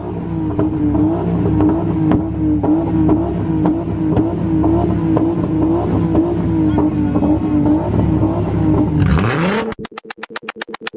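A tuned car's engine held on a two-step launch-control rev limiter, running at a steady high rev with the exhaust popping rapidly. About nine seconds in the revs fall away and the engine note stops, followed by a fast, even run of clicks.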